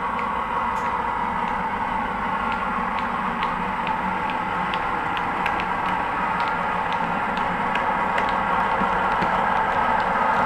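00 gauge model diesel multiple unit running along the track: a steady mechanical hum with light clicking from its wheels over the rail joints, getting slightly louder as it nears.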